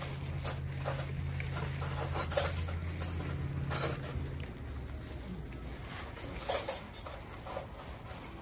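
Thick clear plastic bag over a crate engine crinkling and rustling as it is handled, in many short crackles. A low steady hum runs underneath and stops about four and a half seconds in.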